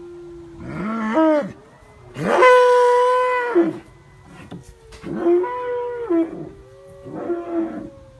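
Animals wailing: four loud drawn-out calls, each rising, holding and falling away, over a quieter steady lower wail that never stops.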